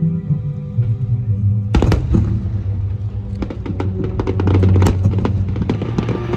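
Fireworks going off over loud background music: one sharp bang about two seconds in, then a rapid run of crackling pops.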